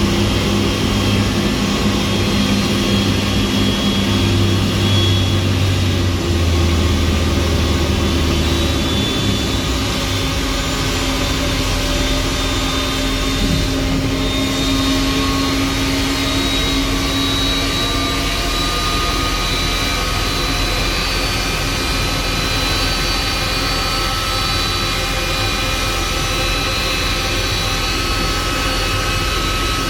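Airbus A300-600 jet engines running at low power, a steady rush with a thin whine that slowly rises in pitch through the second half. A deeper steady hum underneath stops about a third of the way in.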